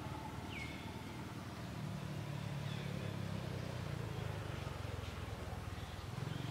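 A low, steady engine hum that grows louder about two seconds in, with a short falling bird chirp near the start.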